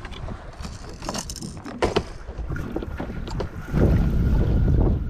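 Water splashing a few times beside a small boat, then heavy wind buffeting the microphone from a little before the end.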